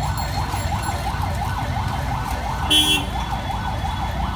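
A siren-like wail rising and falling about three times a second over low street rumble, with a short ringing sound, like a bell, about three seconds in.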